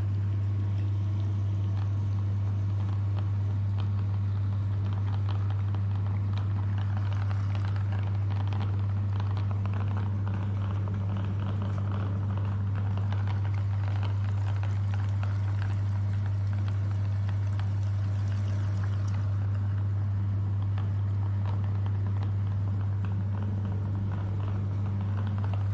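Electric meat grinder running with a steady low motor hum, over a faint crackling and squishing of ice cream being pushed through the grinder.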